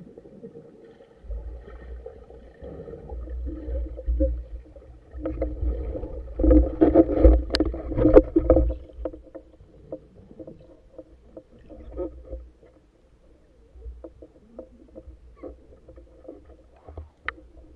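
Muffled underwater water noise around a camera mounted on a speargun: churning and bubbling with a low rumble, swelling loudest about halfway through, with scattered small clicks and knocks.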